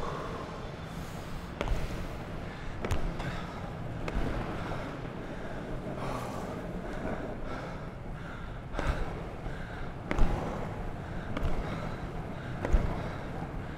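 Longboard wheels rolling over asphalt inside a road tunnel, a steady rumble broken by several short knocks and swells, with heavy breathing mixed in.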